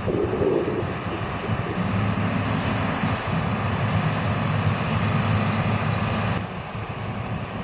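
Combine harvester running steadily with a low engine hum and machinery noise; the sound drops a little and changes character about six seconds in.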